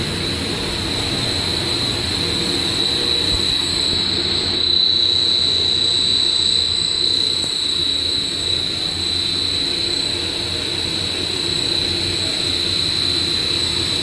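Twisting and cabling machinery on a LAN cable production line, running steadily with a constant high-pitched whine over a low running noise.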